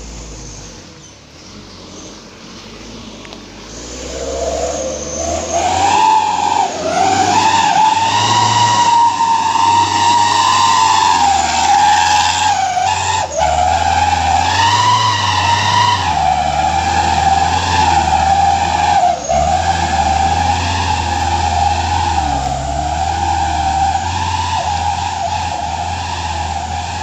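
Vehicle engine running hard with a high steady whine. The whine builds about four to six seconds in and holds with small wavers, as the vehicle climbs a steep uphill road.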